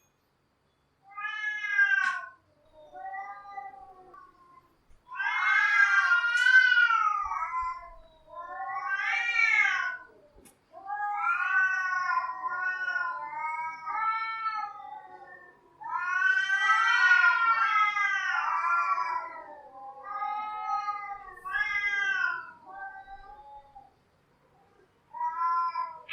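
Cats yowling and caterwauling in a run of long, wavering, drawn-out calls with short pauses between them, some overlapping.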